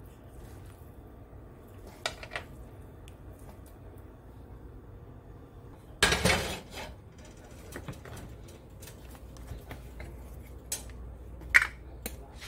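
Cookware handling: a square copper-coloured metal pan set down on an electric coil stove with a clatter about six seconds in. Scattered knocks and clinks of pans and utensils come before and after it, with a sharp clink near the end.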